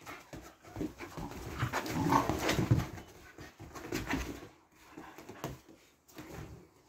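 Two six-month-old American Staffordshire terrier puppies play-fighting: irregular dog noises and scuffling, loudest in the first three seconds and quieter after.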